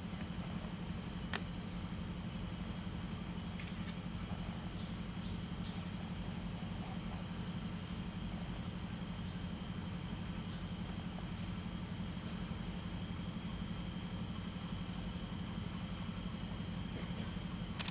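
Steady low background hum with faint, thin high steady tones over it, and a single short click about a second in.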